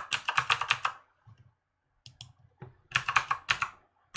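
Keystrokes on a computer keyboard typing a password: a quick run of key presses, a pause of about a second and a half with a few stray clicks, then a second quick run about three seconds in as the password is typed again.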